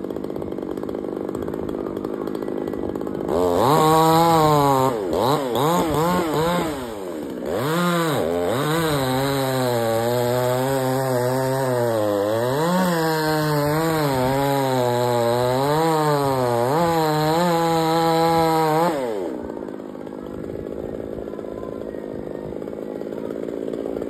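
Petrol chainsaw idling, then revved up and cutting into a coconut palm trunk, its engine pitch sagging and recovering again and again under the load of the cut. About 19 seconds in it drops back to idle.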